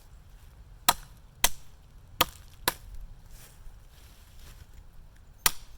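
Small tomahawk with a 52100 steel head chopping branches off a log: five sharp blade strikes into wood, four in quick succession in the first three seconds and one more near the end.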